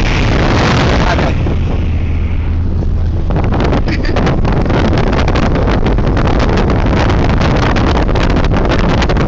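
Loud wind rush and buffeting on the microphone of a camera in a car moving at highway speed, over low road and engine rumble. After about a second the rush eases and a steady low hum comes through, then rapid crackling buffets take over.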